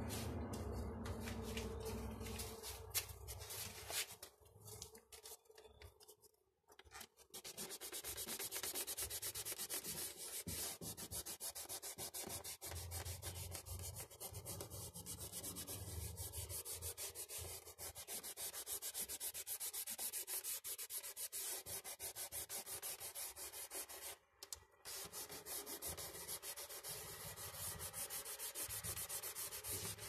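Fingers rubbing pastel on paper in quick back-and-forth strokes, blending the colour. The rubbing pauses for a few seconds near the start, then goes on steadily with a brief break near the end.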